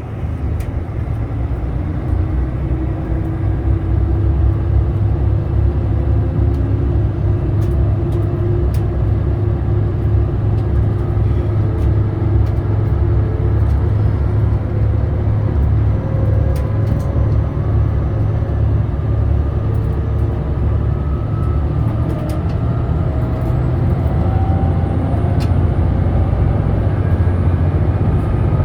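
JR Shikoku 2000 series diesel railcar heard from inside, its diesel engine and running gear giving a heavy steady rumble while a whine climbs slowly in pitch as the train gathers speed. Scattered sharp clicks come from the wheels over the track.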